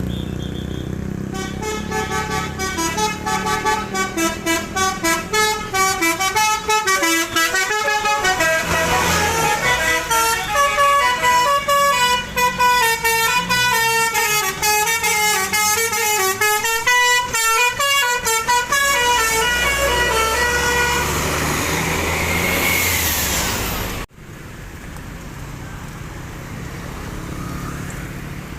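Multi-tone telolet bus horn playing a long, fast melody of rapidly changing notes for about twenty seconds. It ends with a gliding note, then cuts off abruptly to quieter road noise.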